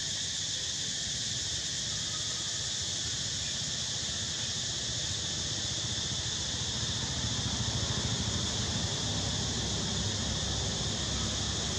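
Steady outdoor ambience: a constant high insect drone, with a low wind rumble on the microphone that grows a little after about seven seconds.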